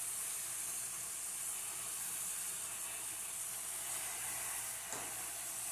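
Steady sizzling hiss from chicken gizzards, onion and tomato sauce cooking in an open aluminium pressure-cooker pot on a gas burner.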